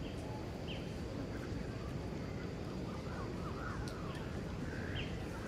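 Outdoor ambience: a steady low rumble with faint, short high chirps scattered through it, a few of them sliding down in pitch about three seconds in.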